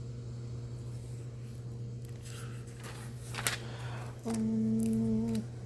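Paper hymnal pages rustling and turning, with a sharp click about three and a half seconds in. Near the end comes a steady pitched hum lasting about a second.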